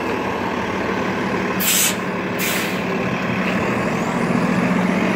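Transit bus pulling away from the curb, its engine running with a steady drone that grows a little louder toward the end. Two short, sharp air-brake hisses come about a second and a half and two and a half seconds in.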